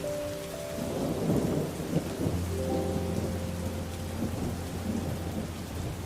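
Steady rain with a rumble of thunder that swells about a second in and fades into a low, steady rumble.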